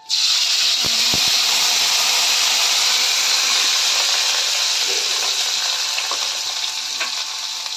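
Onion paste dropped into hot oil in a kadhai: loud sizzling frying that starts suddenly and slowly dies down, with a few knocks of the bowl against the pan about a second in.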